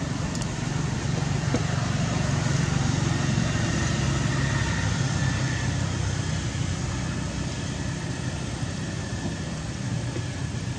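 A motor engine running steadily with a low hum, swelling slightly in the first few seconds and then easing off.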